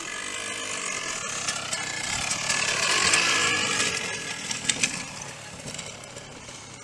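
Dirt bike engine running as the bike comes down the slope close past, growing louder to a peak about three seconds in and then fading as it moves away. Its pitch rises and falls with the throttle.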